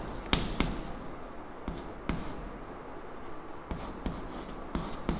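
Chalk writing on a chalkboard: a string of sharp taps and short scratching strokes as figures are written.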